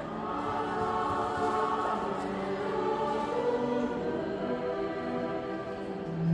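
A choir singing slow, held chords in several voice parts, the notes shifting every second or so.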